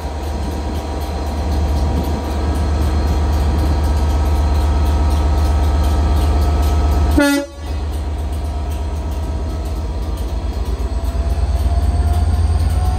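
Class 67 diesel-electric locomotive's V12 two-stroke engine running with a steady low hum, a short toot about seven seconds in. From about ten seconds in, a rising whine as the locomotive powers up to pull away.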